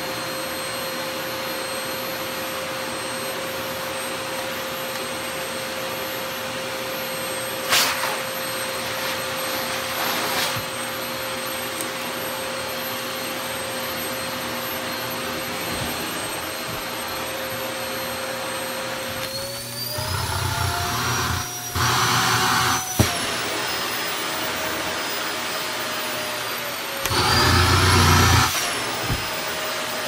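Household vacuum cleaner running steadily with a high whine. About two-thirds of the way in, its pitch starts to glide up and down and it turns louder and rougher twice as the nozzle sucks at the man in bed and his bedding. There is a single knock about eight seconds in.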